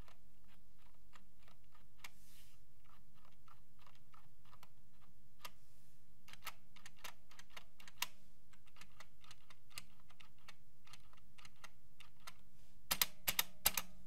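Spacebar of a Cherry G80-3494 keyboard with MX Silent Red switches pressed over and over, giving soft, subdued clicks with a slight rattle. About a second before the end come three or four louder strokes.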